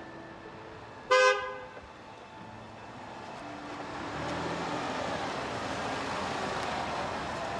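A car horn toots once, short and loud, about a second in. Then a Ford SUV approaches at low speed, its engine and tyre noise growing louder from about halfway through and holding steady as it draws up close.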